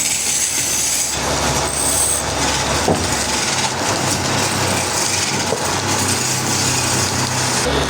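Sawmill machinery running steadily: a motor's low hum under loud, even noise from wood-cutting equipment, with a change in the low hum about three and a half seconds in.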